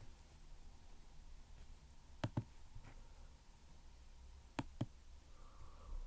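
Two pairs of sharp plastic clicks, about two and a half seconds apart, from a hair dryer being handled, with its motor off.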